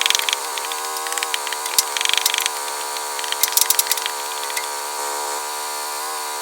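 Sawmill engine running steadily under load while the blade cuts through a red oak log, with scattered crackling and ticking over the top.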